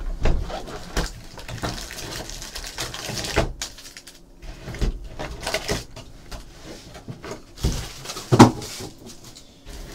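Unboxing of a Topps Tribute baseball hobby box: crinkling plastic wrap, the cardboard box being opened, and foil card packs pulled out and set down on a table, heard as irregular rustles, crackles and knocks. A sharper knock about eight seconds in.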